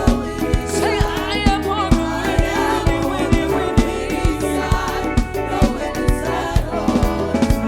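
Live African gospel praise music: a band playing a steady drum beat with sustained keyboard-like chords, and voices singing over it.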